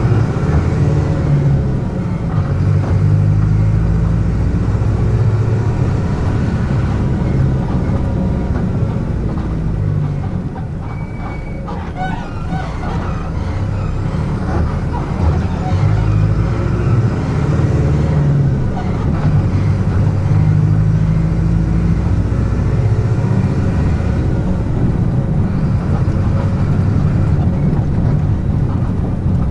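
Front-mounted diesel engine of a Mercedes-Benz OF-1722M coach heard from inside the bus while it is being driven. Its note rises and falls as the bus pulls and eases off, with a quieter spell about halfway through.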